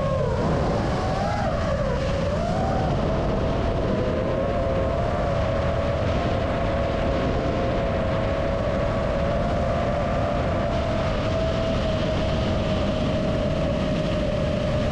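Brushless motors and propellers of an FPV freestyle quadcopter (iFlight Cyber Xing 2207.5 1777 kV motors) whining at a steady cruise throttle, heard from the camera on the quad. The pitch wavers a little in the first couple of seconds, then holds level over a hiss of rushing air.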